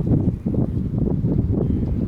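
Strong wind buffeting the microphone in gusts, a loud low rumble ahead of an approaching typhoon.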